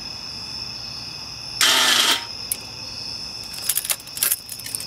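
Starter motor of a 2004 Yamaha R1 buzzing once for about half a second when the starter button is pressed, without turning the engine over; a few sharp clicks follow near the end. The starter is still malfunctioning after its brushes were refitted.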